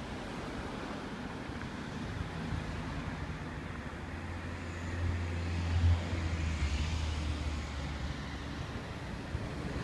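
Road traffic on a highway: a motor vehicle's engine hum and tyre noise build, pass close and loudest about six seconds in, then fade.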